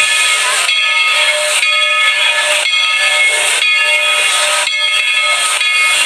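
Steam locomotive venting steam: a loud, steady hiss with a whistle-like ringing tone in it, swelling about once a second.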